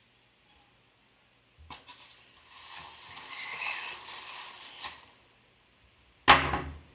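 Handling noises: a scraping rustle lasting about two seconds, then a single loud knock near the end.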